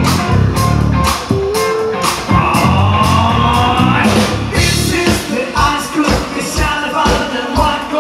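Live rock band playing loud, with drums, guitar and a singer on the microphone. About five seconds in, the heavy low riff drops out, leaving a steady kick drum beat.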